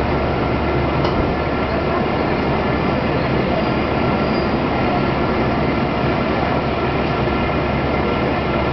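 Kanto Railway Ryugasaki Line diesel railcar running steadily along the track, an even rumble with a faint engine drone.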